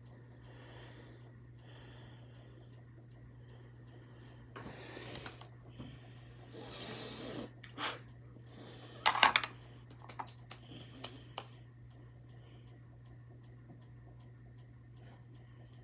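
Close breathing through the nose over a steady low hum, then rustling and a cluster of sharp clicks and knocks as small makeup items are handled, the loudest about nine seconds in.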